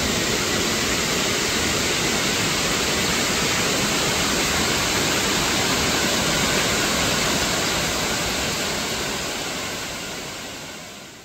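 Steady rushing noise, even from low to high pitch, that fades out over the last few seconds.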